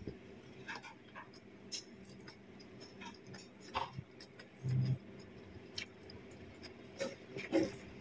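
A person eating rice and fish with her hand: scattered soft clicks and smacks of chewing, with a short low thud a little after the middle.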